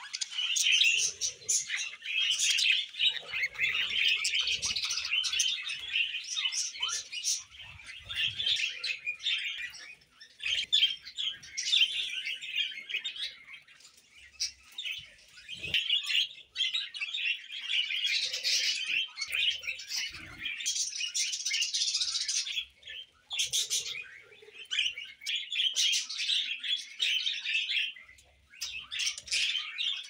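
Budgerigars chattering and chirping: rapid, busy warbling in stretches of several seconds, broken by short pauses.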